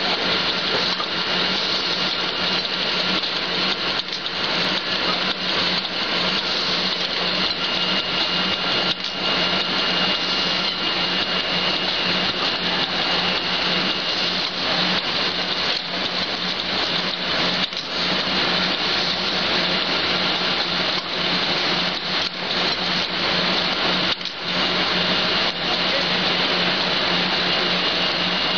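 Napkin production and packing machinery running steadily: an even mechanical din over a constant low hum and a thin high whine, with a few short clicks or knocks here and there.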